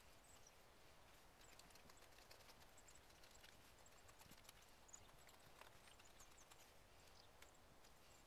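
Faint, irregular clicks and light scrapes of a carving knife slicing thin shavings from a green trembling aspen spoon blank.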